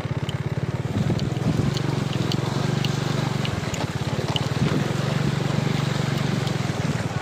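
Motorcycle engine running at low speed with a steady, rapid low pulse while the bike rolls through shallow floodwater, with light splashing ticks of water over it.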